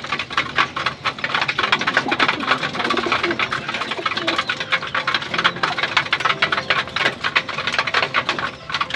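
A flock of racing pigeons pecking seeds and grain from a metal feeding trough: a dense, rapid clatter of beak taps.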